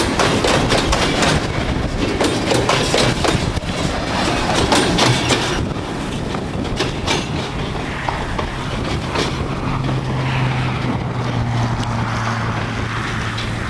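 Loaded grain hopper wagons of a freight train rolling past, their wheels clattering over the rail joints. The clatter thins out about six seconds in as the last wagons go by, leaving the quieter rumble of the train moving away, with a low steady hum coming in near the end.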